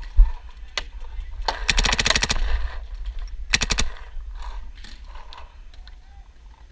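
Paintball marker firing a rapid string of about ten shots in roughly a second, then a shorter burst of four or five shots about a second later.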